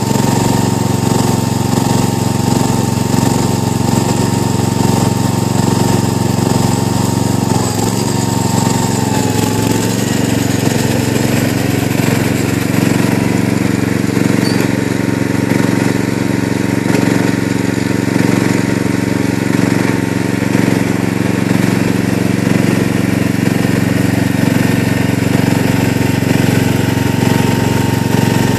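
Gravely 8163B garden tractor's engine running steadily under load as the tractor pushes mulch with its front plow blade. A thin high whine sits over the engine, dips about eight seconds in and stops about two seconds later.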